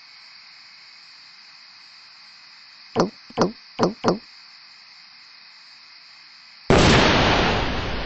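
Four quick gulps, each dropping in pitch, as a cartoon character drinks from a can, then a few seconds later a sudden loud rush of noise like an explosion that slowly fades: an enormous cartoon burp.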